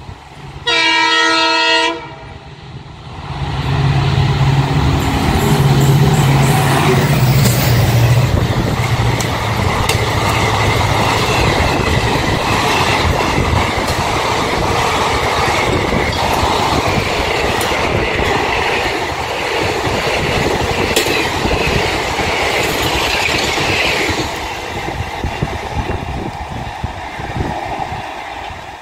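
An Indian Railways express led by a dual-cab locomotive sounds one loud horn blast about a second in, then passes close by. First comes the locomotive's low engine drone for several seconds, then the coaches rolling past with rhythmic wheel clatter over the rail joints, easing off over the last few seconds.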